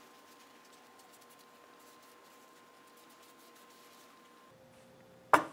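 Faint handling sounds of a ball bearing being turned and wiped in a paper shop towel, small soft clicks over a faint steady hum. One sharp knock near the end.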